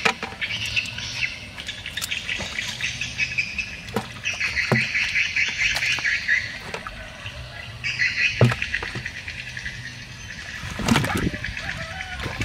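Outdoor chorus of birds and insects chirping, over splashes and knocks of muddy water being bailed out of a dug fish pit with a plastic basin. The biggest splash comes near the end.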